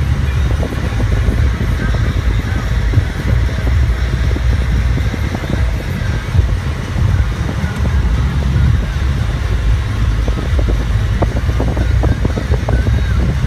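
Road noise heard inside a car cruising at highway speed on concrete: a steady low tyre rumble with frequent irregular small thumps.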